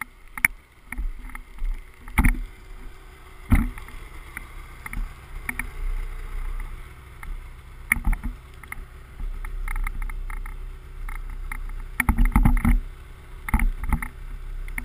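Snowmobile engine running at low speed as the sled creeps through deep snow, with irregular sharp knocks and bumps over it, the loudest about three and a half seconds in and a cluster of them about twelve seconds in.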